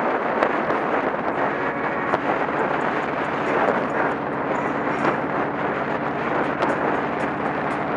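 Motorcycle engine running at a steady cruising speed, under heavy wind rush on the camera's microphone; a steady engine hum comes through more clearly from about three seconds in.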